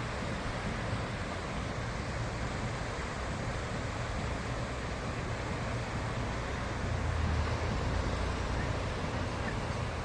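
Sea surf washing onto a beach, mixed with wind rumbling on the microphone. It swells louder about seven seconds in.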